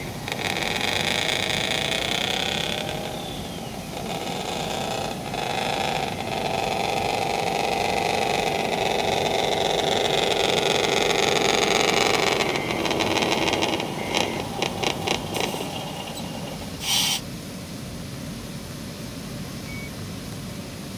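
Radio-controlled three-axle tipper truck driving, its motor and drivetrain running with a steady, slightly wavering whine. About two-thirds of the way through come a quick run of clicks and then a short burst, after which the sound drops to a lower steady level.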